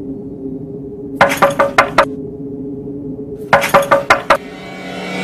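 Dramatic background score over a steady low drone, with two bursts of four or five sharp, clinking hits in quick succession, about a second in and again about three and a half seconds in. A steady, rising sound comes in near the end.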